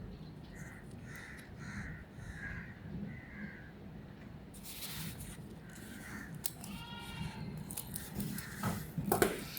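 An animal calling in the background, several short calls in the first few seconds, then a longer arching call about seven seconds in. A few sharp clicks follow near the end.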